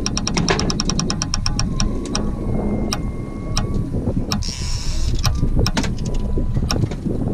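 Suzuki 30 outboard motor running with a steady low rumble. A fast, even run of sharp ticks, about seven a second, fills the first two seconds, and scattered single clicks follow.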